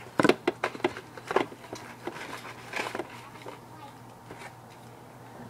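Handling noise from rummaging for an object: a quick cluster of sharp knocks and clicks just after the start, then scattered softer knocks and rustles.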